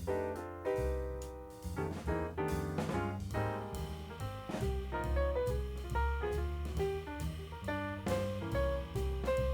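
Background jazz music with piano, bass and drums at a steady beat.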